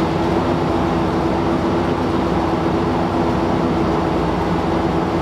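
1993 Ford F250 running with its newly fitted rear fuel pump, a steady hum with a constant whine while the fuel line connections are checked for leaks.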